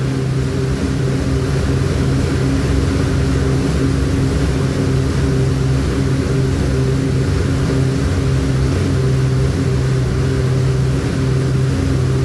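Dual-action air bike's fan wheel spinning at a hard sprint: a loud, steady rush of air with a constant hum. It builds over the first second and then holds even.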